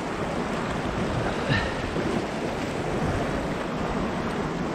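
Sea surf washing against shoreline rocks, with wind buffeting the microphone, a steady rushing wash; one short sound stands out about a second and a half in.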